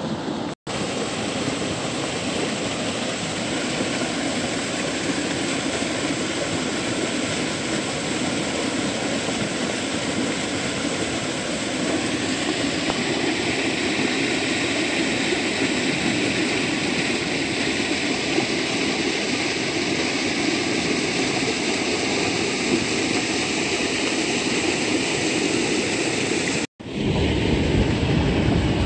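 Steady rush of water pouring through a small irrigation channel, an even hiss-and-roar. Near the end it gives way to a deeper, rumbling noise.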